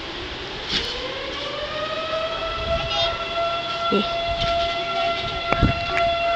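Fire siren winding up: its tone rises over about a second and a half, then holds one steady pitch. A few light knocks come through.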